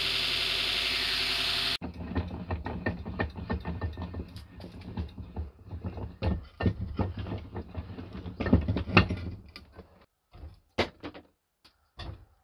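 A belt grinder running steadily for the first second and a half or so, cut off abruptly. Then irregular knocks, clicks and clatter of a zebrawood block and offcuts being handled in a bench vise and on a wooden workbench, thinning out near the end to a few separate sharp knocks.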